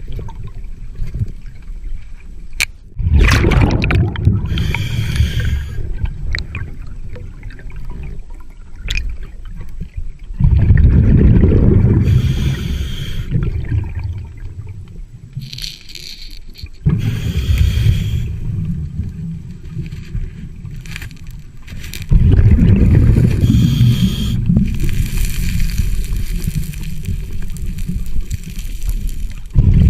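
Scuba diver breathing through a regulator underwater: a hissing inhale, then a loud bubbling rush of exhaled air, four breaths in all.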